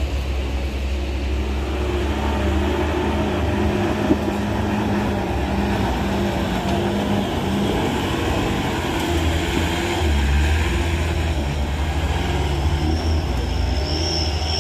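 A vehicle engine running steadily at low revs, with one sharp knock about four seconds in.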